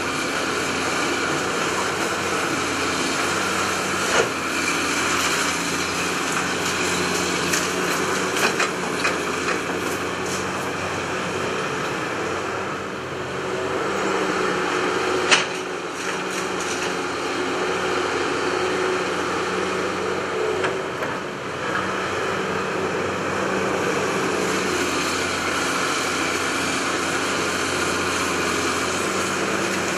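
Hydraulic excavator's diesel engine running steadily as it demolishes a building, with scattered knocks and crashes of breaking debris and one sharp bang about halfway through.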